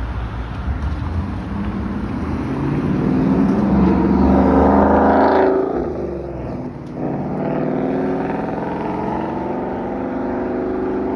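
Cars passing close by on a wet road, tyre hiss and engine noise. One pass swells to a peak about five seconds in and falls away, then another car passes.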